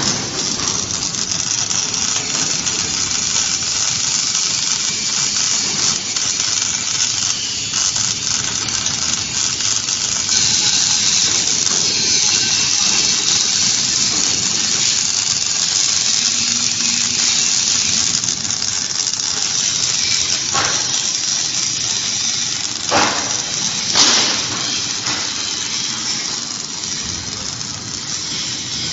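Automatic arc welding torch on a gantry welding machine burning a long seam on steel plate: a steady hiss that grows a little louder about a third of the way in, with a few sharp cracks late on.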